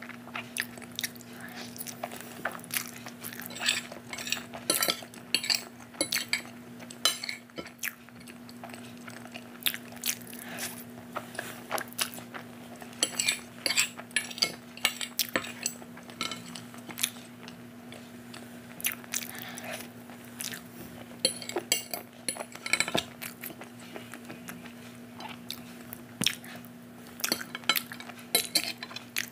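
Metal fork clinking and scraping on a clear glass plate, irregular sharp clicks and short scrapes, as the last noodles and egg crumbs are gathered up and eaten. Soft chewing is heard between the clinks.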